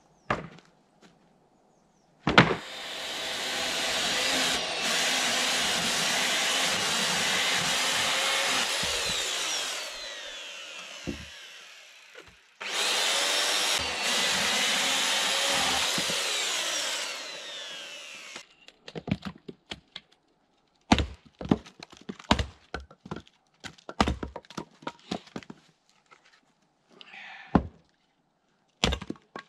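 Electric chainsaw cutting through wood off-cuts in two long runs, its motor whine rising and falling under load, the first cut winding down slowly before the second. After that comes a string of sharp wooden knocks, and near the end a hatchet splits kindling on a chopping block.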